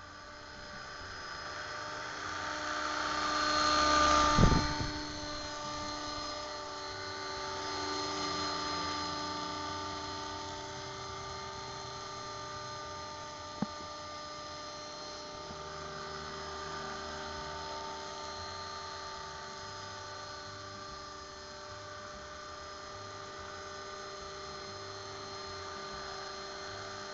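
Radio-controlled scale Agusta 109 helicopter on an electric Mini Titan chassis in flight: a steady whine of several tones from the motor and rotors, swelling to its loudest about four seconds in. A sharp knock sounds at that peak, and a faint click comes about fourteen seconds in.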